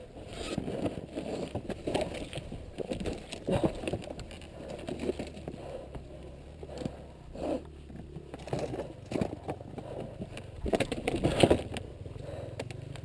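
Honda CRF450R dirt bike engine running low and steady, with irregular scraping and crunching of dirt and rocks as the stuck bike is worked loose. The loudest scrape comes about 11 seconds in.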